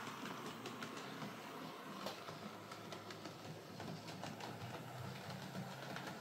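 Hornby J15 OO gauge model locomotive running on track with its newly fitted replacement motor: a faint steady motor hum and whine under irregular light clicks of the wheels on the rails.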